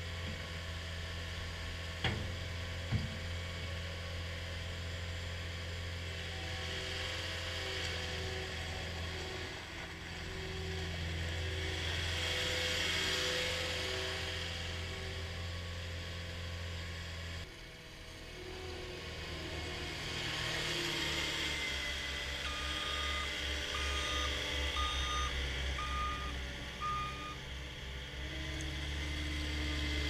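Cat 242D skid steer loader's diesel engine running while the machine is driven and works its bucket, the engine note changing about halfway through. Two sharp knocks come near the start. In the second half a backup alarm beeps about five times, roughly once a second.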